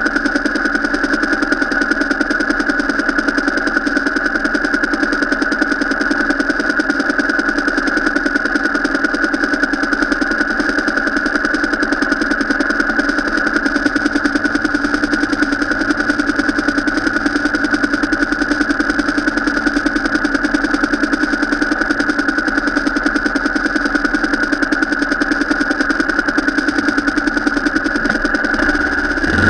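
A vehicle engine running steadily at an even, unchanging pace, droning without revving up or down.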